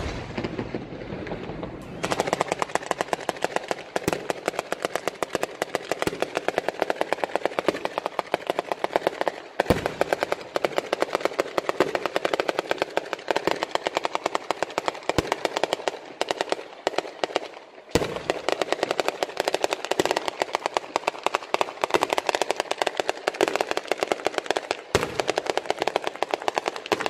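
Sanseverese firework battery: a ground-level chain of firecrackers going off in a rapid, unbroken crackle of bangs, many a second. It starts about two seconds in, with a few louder single bangs scattered through and a brief pause about two-thirds of the way in.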